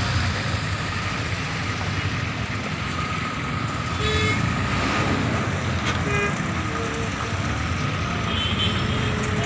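Traffic-jam noise of bus and truck engines running, with short vehicle-horn toots several times, the first about four seconds in.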